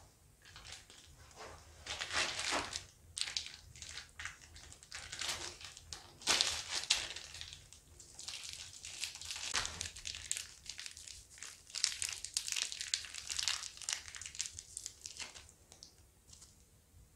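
Thin clear plastic film wrapped over the end of a motorcycle fork tube crinkling in gloved hands, in irregular bursts, as a greased new fork seal is worked down over it.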